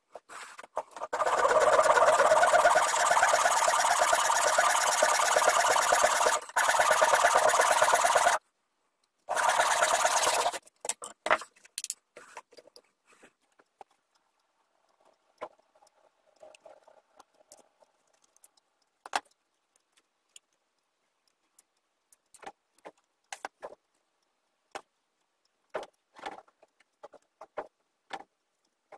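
Wood being sanded: a walnut piece worked against a jig, a steady scratching noise for about seven seconds, a brief stop, then a shorter second burst. After that, scattered light clicks and taps of small wooden parts and a glue brush being handled.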